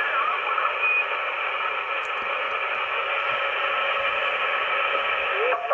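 A CB radio's speaker hisses with steady band-limited static while receiving on single sideband between transmissions, with a brief faint tone about a second in. A voice comes through the radio right at the end.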